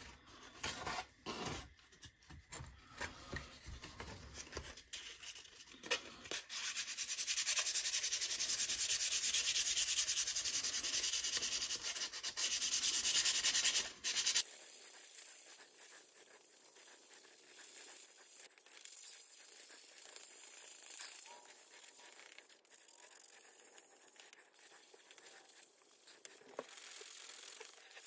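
Hand-sanding rust off the steel blade of a Model 1893 Spanish bayonet with 320-grit sandpaper: a steady dry hiss of paper rubbing on metal. Light knocks and rustles of the sandpaper being handled come first. The sanding is loudest from about six to fourteen seconds in, then changes abruptly and goes on fainter.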